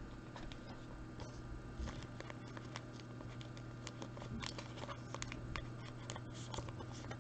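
Faint handling of trading cards: scattered small clicks and rustles, over a steady low hum.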